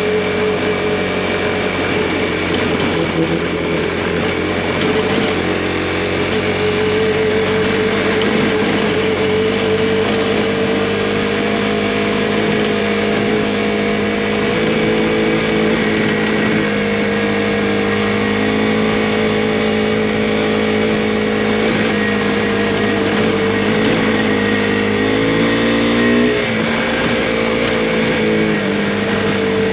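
Engine of an off-road vehicle running steadily as it is ridden down a rough dirt road, over a steady hiss of noise. Its pitch climbs and wavers briefly near the end.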